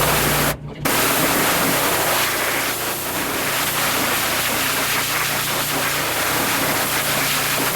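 Pressure washer spraying a wheel: a loud, steady hiss of water over the low hum of the running pump. It breaks off briefly about half a second in and then starts again.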